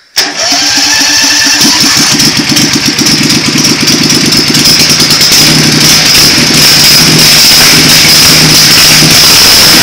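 Modified 2001 Craftsman LT1000 racing lawn mower's engine starting up and running very loud. It catches suddenly and runs unevenly at first, then settles into a steadier run after a few seconds.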